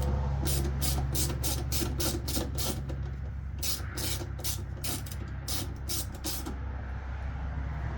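Two runs of quick, even rasping strokes, about three or four a second, from hand work on the truck's blower motor, over a steady low hum.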